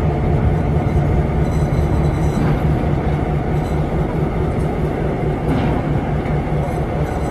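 Nohab M61 diesel locomotive's EMD 16-567 two-stroke V16 engine running, a steady low rumble.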